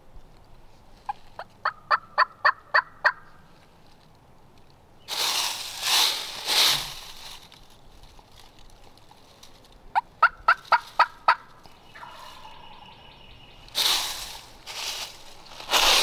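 Two runs of hen-turkey yelps from a turkey call, blown or stroked by a hunter to draw a gobbler. The first run of seven or eight evenly spaced notes comes about a second in, the second of five or six at about ten seconds. Between and after them come short groups of rough, raspy calls.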